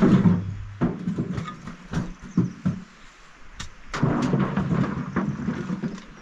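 A run of irregular heavy thuds and knocks over a low rumble, busiest about four seconds in.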